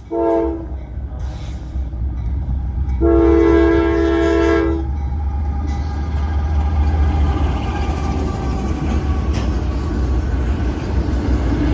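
Diesel locomotive horn on a Norfolk Southern intermodal train sounding a short blast and then a longer one, the closing part of its grade-crossing signal. After that comes the low rumble of the locomotive and the double-stack container cars rolling past.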